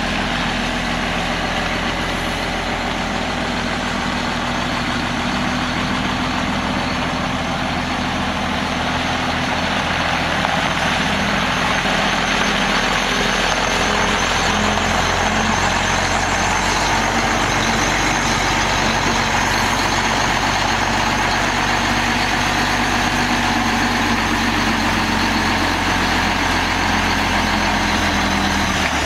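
Mack E7 12.0-litre inline-six turbo diesel of a semi truck idling steadily.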